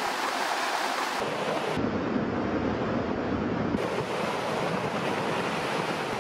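Rockfall as a large rock outcrop collapses, heard as a steady rushing noise mixed with wind on the microphone, with no distinct impacts.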